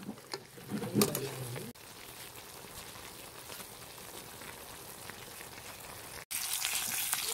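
Food sizzling: a quiet, steady hiss with faint crackles, then, about six seconds in, a sudden switch to louder crackling sizzle of whole fish frying in hot oil.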